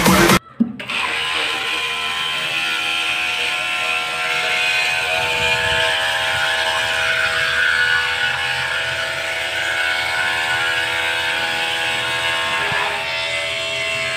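12 V 775 DC motor driving a 3D-printed water pump, running steadily with an even whine.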